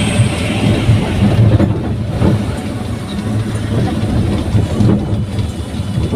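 Daihatsu Gran Max pickup on the move: a steady low rumble of engine and road noise.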